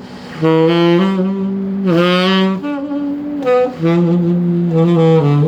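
Tenor saxophone fitted with a J&B Custom Jaguar mouthpiece, 6* tip opening, playing a short phrase of held low-register notes that begins about half a second in, with brief breaks between notes.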